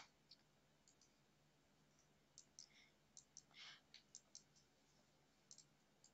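Faint computer mouse clicks: a dozen or so short single clicks at uneven intervals, some in quick pairs, over near silence.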